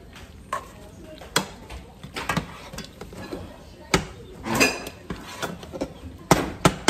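A cooking utensil clinking and knocking against a pan while thick macaroni and cheese is stirred: irregular sharp knocks, about one a second, the loudest about four seconds in and near the end.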